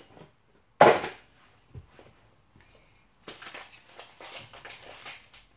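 A single sharp thump about a second in, then a run of crinkling and rustling as a small plastic parts packet from a Meccano kit is handled, from about three seconds in.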